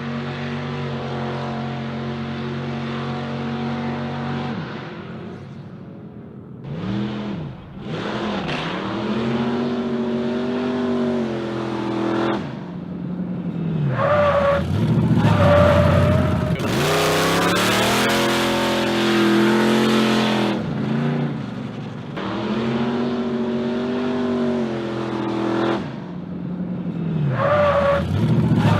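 Loud big-block V8 of a Chevrolet Impala being driven hard, its revs rising and falling again and again, with brief dips between pulls. A loud stretch around the middle carries tyre squeal.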